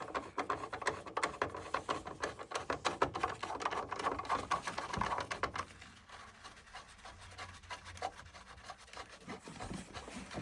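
Hands pulling wire connectors off a treadmill's motor controller board: quick clicking and scraping of plastic and metal for about five and a half seconds, then fainter handling.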